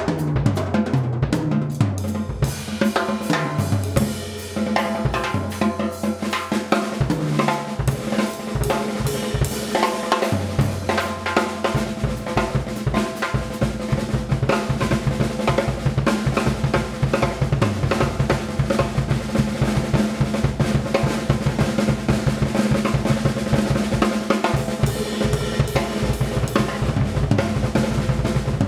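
Drum solo on a Pearl drum kit: bass drum, snare, toms and cymbals played continuously, growing busier and denser from about twelve seconds in.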